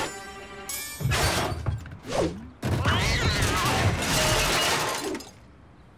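Cartoon crash sound effects: a short musical tone, then loud crashing and clattering of metal car parts being smashed and flung out, in two bursts, the longer one stopping about five seconds in.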